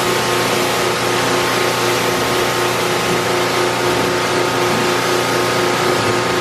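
Pressure washer spraying down a tractor: a loud, steady machine hum from the washer's pump and motor under the constant hiss of the water jet.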